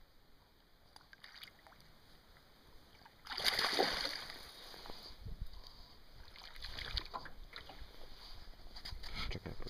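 Hooked northern pike thrashing at the surface beside a boat: a sudden loud splash about three seconds in, then softer splashing and sloshing of water with a few low knocks.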